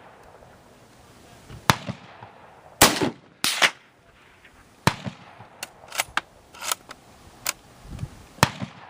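Gunshots, about ten sharp reports at irregular gaps, too many and too close together for one bolt-action rifle, so several guns are firing. The two loudest come close together about three seconds in, and a run of lighter shots follows.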